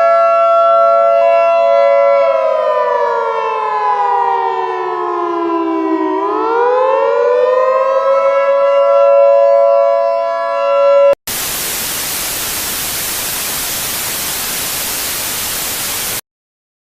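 Civil defense siren sounding a chord of several steady tones, sliding down in pitch for a few seconds, rising back and holding. About two-thirds of the way through it cuts off abruptly to a loud, even hiss of TV static, the station going off the air. The static ends just as suddenly about five seconds later.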